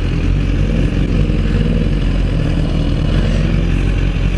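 Motorcycle engine running at low revs with a steady hum, its pitch rising slightly about a second in.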